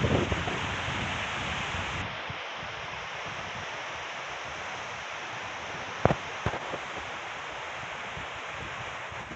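Strong storm wind from Hurricane Ian rushing through the treetops as a steady hiss, with wind buffeting the microphone in the first moment. Two sharp knocks come about six seconds in, the first louder.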